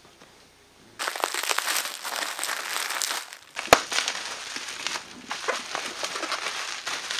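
Plastic bubble wrap crinkling and rustling as a large bubble-wrapped package is pulled loose and handled, starting about a second in, with one sharp pop about three and a half seconds in.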